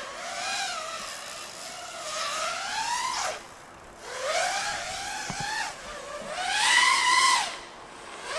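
FPV quadcopter's brushless motors and propellers whining, the pitch rising and falling with the throttle. The throttle is cut sharply about three seconds in and again near the end.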